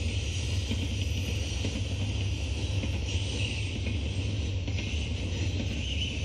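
Double-stack intermodal freight train rolling past: a steady low rumble with an even hiss of the cars' wheels on the rails.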